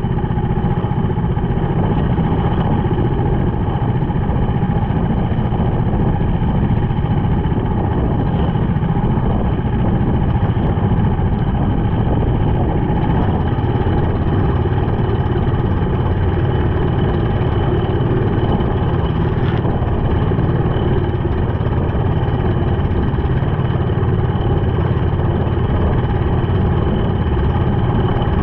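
Small outrigger fishing boat's engine running steadily under way, with water rushing and splashing along the hull.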